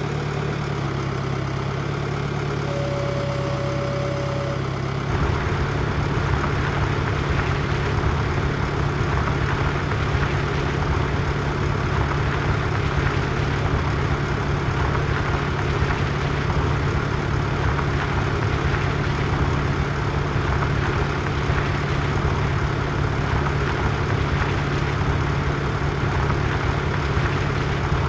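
A tractor engine running steadily. About five seconds in it turns louder and rougher, and stays that way. A short steady tone sounds about three seconds in.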